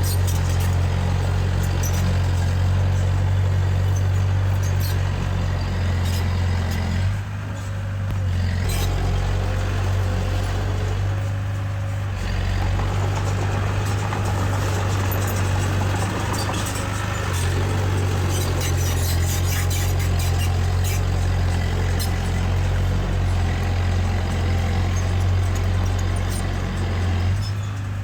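Diesel engine of heavy earthmoving machinery running steadily with a deep hum. Its note drops briefly about seven seconds in, again around twelve seconds and just before the end. Scattered light metallic clicks are heard over the engine.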